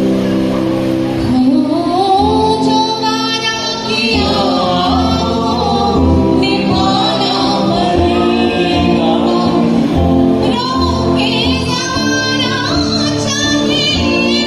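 Live band: a woman singing a melody into a microphone over electric guitar and drums, amplified through PA speakers, with a steady beat.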